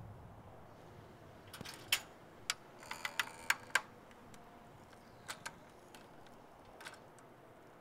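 A string of light, irregular clicks and taps, about eight close together and then three more spaced out, over a faint background hush.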